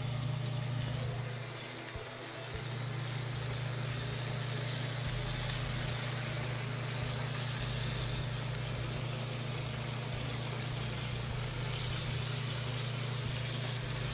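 Monkfish pieces and sliced onion sizzling in hot oil in a cast-iron grill pan, a steady hiss that dips briefly about two seconds in, over a steady low hum.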